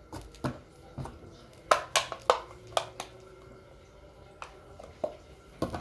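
Scattered light clicks and knocks of objects being handled, about a dozen, with the loudest cluster around two seconds in.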